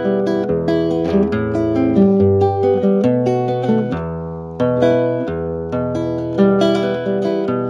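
Background music: a solo acoustic guitar plucking an instrumental interlude of a folk song, with a moving bass line and no singing.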